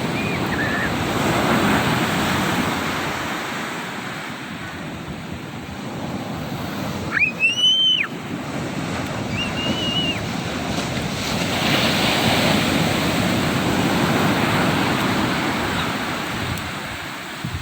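Sea surf washing up the beach and drawing back, swelling twice in loudness. About seven seconds in, a brief high-pitched squeal rises and falls, with a shorter, fainter one a couple of seconds later.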